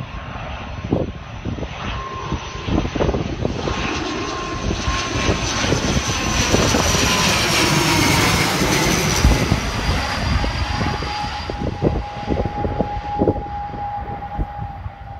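ATR 72 turboprop airliner passing low overhead on approach. Its engine and propeller sound builds to a peak about eight seconds in and then fades, and its steady whine drops in pitch as it goes over. Gusty wind buffets the microphone throughout.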